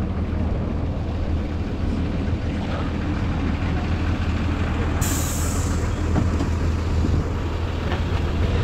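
Shuttle bus idling with a steady low engine hum. About five seconds in comes a sudden hiss of released air from its air brakes or door pneumatics, lasting about a second.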